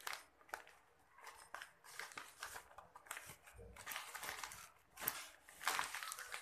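Plastic carry bag crinkling and rustling on and off as hands handle and untie it.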